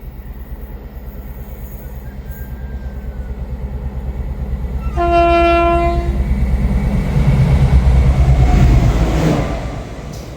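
Diesel train approaching, its engine pulsing louder. About halfway through it sounds one steady horn note for about a second, then it passes close by and its noise falls away near the end.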